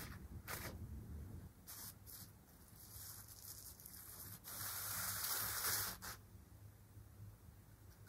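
Thin, crinkly synthetic fabric rustling as a string is dragged underneath it: a few short rustles, then a longer, louder rustle in the middle.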